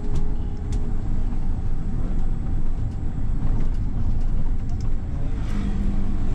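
Steady low rumble of a bus's engine and tyres on the road, heard from inside the cabin as it drives, with a few faint clicks and rattles.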